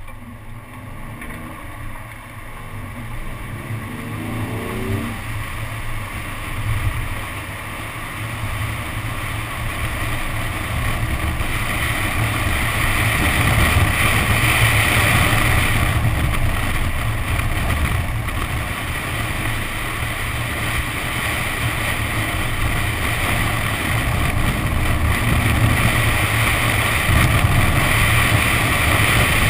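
Nissan 370Z's 3.7-litre V6 engine being driven hard on a wet track, heard with rushing wind and tyre spray on a camera mounted outside the car. The engine pitch rises and falls over the first few seconds, then a steady hiss of water spray and wind grows louder.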